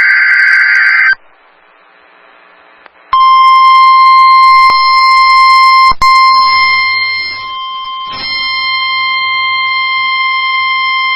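NOAA Weather Radio test signal: the tail of a SAME digital header burst, a raspy data screech that cuts off about a second in, and a pause of about two seconds. Then the steady, piercing 1050 Hz weather radio warning alarm tone comes on, with a brief dropout partway through.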